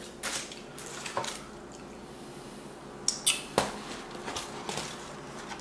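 Paper takeout box and its wax-paper liner being handled: a few short crinkles and taps, the loudest cluster about three seconds in.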